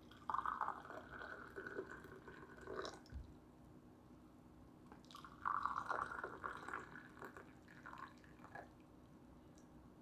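Tea poured from a pot into two porcelain cups, one after the other: two splashing pours of about three seconds each, the second beginning about five seconds in.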